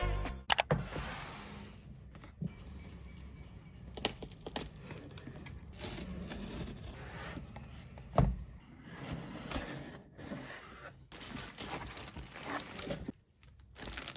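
Packaging being handled and opened: crinkling and rustling with scattered scrapes and light knocks, and one louder thump about eight seconds in.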